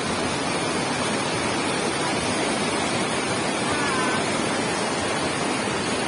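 Steady rushing of a rain-swollen, muddy mountain stream in spate, pouring fast over and between boulders.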